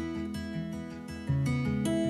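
Background music led by a strummed acoustic guitar, moving to a new, slightly louder chord about a second and a half in.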